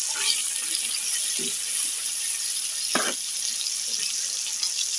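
Oil-basted boneless chicken thighs sizzling on an electric grill, a steady high hiss, with a short knock about three seconds in.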